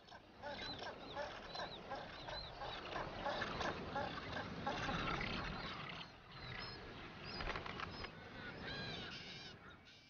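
Seabird colony of southern rockhopper penguins and black-browed albatrosses calling, many short overlapping calls.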